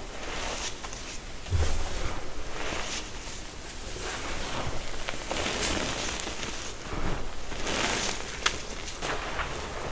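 Hands squeezing and pressing into a heap of crushed reformed gym chalk: soft, crunchy crumbling and powdery rustling that swells and fades with each press, with a sharper crackle about eight and a half seconds in.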